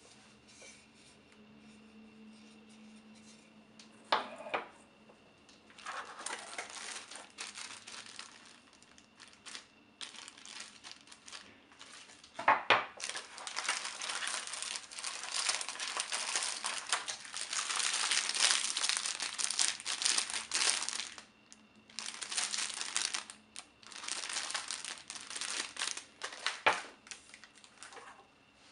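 Plastic packaging bags and cardboard crinkling and rustling as packed parts are handled, in long stretches that are loudest in the middle. There are three sharp knocks along the way.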